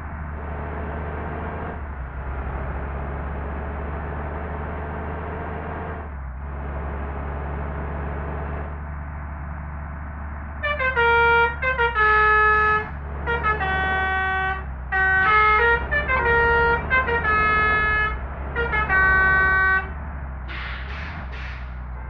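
A bus's 'telolet' musical horn playing a melody of stepped notes in several short phrases over about ten seconds, starting about halfway through, over a steady low engine rumble. Three faint short high beeps follow near the end.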